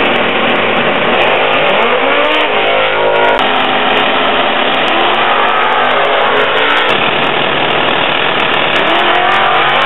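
Drag race cars' engines running loudly at the starting line, revving up and falling back in pitch several times.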